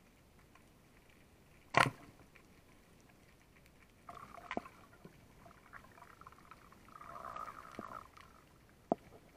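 A speargun fired underwater: one sharp, loud crack about two seconds in. Afterwards come faint clicks and scraping, with a short rasp about four seconds in and a longer one a little later.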